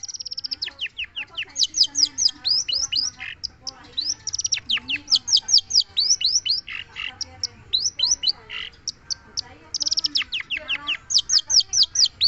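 Long-tailed shrike (cendet) singing loudly: a continuous rapid run of sharp, falling whistled notes, several a second, broken by short buzzy rattles at the start and about ten seconds in.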